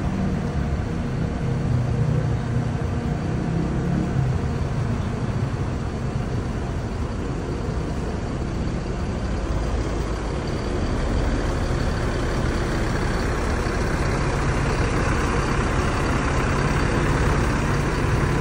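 Mercedes-Benz tour coach's diesel engine running as the bus moves off, growing louder over the last several seconds.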